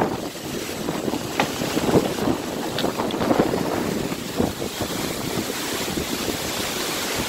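Gusty wind blowing over the microphone, a steady rush of wind noise.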